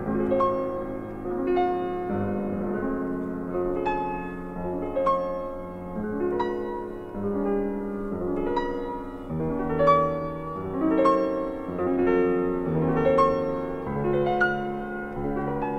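Background music: solo piano playing a gentle, unhurried melody over chords, each note struck and left to ring.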